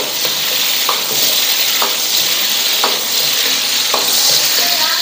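Chicken pieces sizzling in hot oil in a wok as they are fried until crisp, with a metal ladle stirring and knocking against the wok about once a second.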